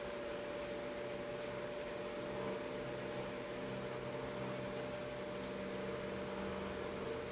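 A steady machine hum with an even hiss.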